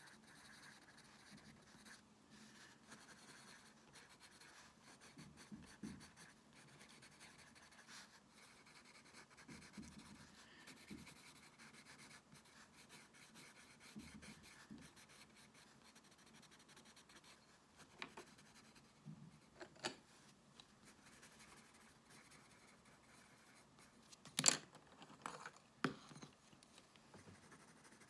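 Pencil crayon scratching softly on sketchbook paper in short colouring strokes. Several light knocks fall in the last third, one louder than the rest.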